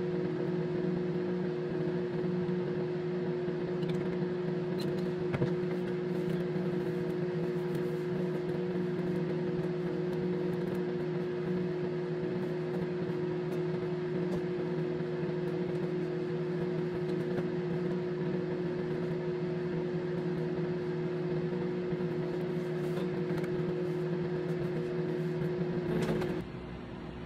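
Steady low electrical hum of an appliance running, with a few faint clicks, cutting off suddenly near the end.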